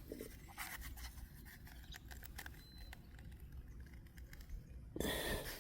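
Faint scattered clicks and light scraping from handling a small damaged object, with a brief louder rustle about five seconds in.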